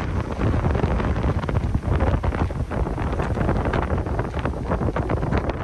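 Non-stop wind buffeting the microphone: a loud, gusty low rumble that rises and falls without a break.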